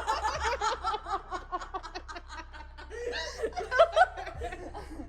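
Young women laughing nervously in quick, rapid giggles, with a few louder laughs about four seconds in.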